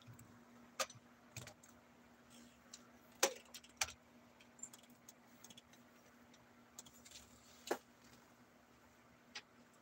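Scattered light clicks and knocks, about half a dozen at uneven intervals, from the phone being handled and the person shifting about, over a faint steady hum.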